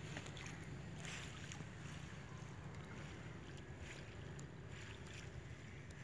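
Faint water swishes and sloshing as a fishing net is drawn through shallow water at the bank, several short swishes scattered through, over a steady low rumble of wind on the microphone.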